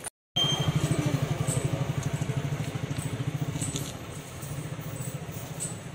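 Motorcycle engine running close by with an even, rapid pulsing beat, loudest over the first few seconds and easing off after about four seconds.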